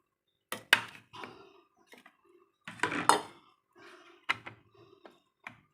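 Kitchen utensils and containers clinking and knocking: a few sharp clacks, the loudest a little under a second in and about three seconds in, with quieter handling and rattling between.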